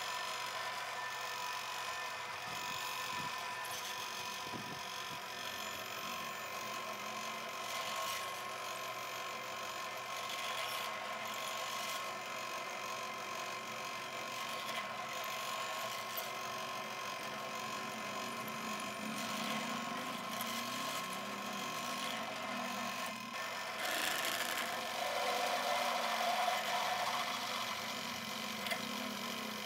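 Pillar drill running with a steady whine while its twist bit drills into a metal block, cutting with a continuous grinding hiss. The cutting grows louder and rougher for a few seconds near the end.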